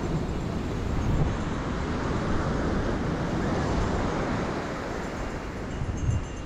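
Wind buffeting the microphone, heavy and gusty in the low range, over the steady rush of sea surf.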